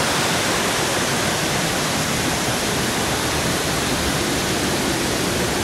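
Small mountain waterfall pouring over rock into a plunge pool, heard close up: a steady, loud rush of falling water.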